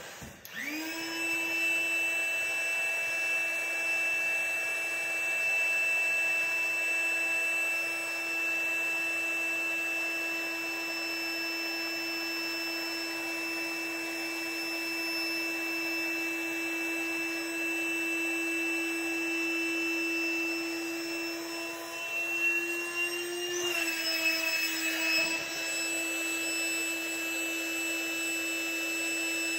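Ryobi cordless high-volume, low-pressure inflator starting up and running steadily in deflate mode, a constant motor whine sucking the air out of an inflatable kayak. About three-quarters of the way through, its pitch rises briefly and there is a short noisy rush as the pump is shifted to another valve, then the steady whine carries on.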